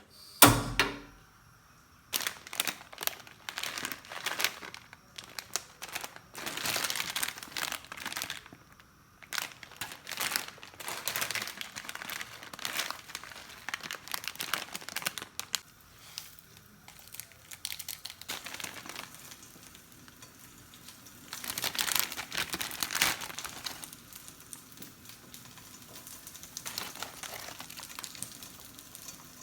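Plastic packaging being crinkled and torn open by hand, in irregular rustling spells, after a single sharp knock about half a second in.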